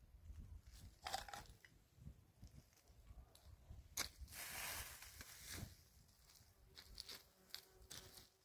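Faint crunching and rustling with scattered small clicks, and a longer rustle of about a second and a half near the middle.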